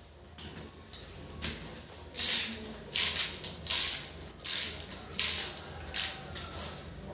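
A hand tool worked in about eight short, noisy, mechanical strokes, a little under a second apart, starting about a second in.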